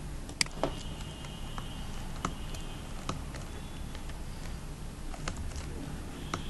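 A computer keyboard being typed on: about nine sharp keystroke clicks at irregular intervals, over a steady low hum.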